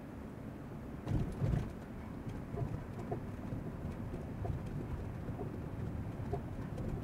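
Low, steady road and engine rumble heard inside the cabin of a Volkswagen Touareg 3.0 TDI towing a caravan, with two low thumps close together about a second in.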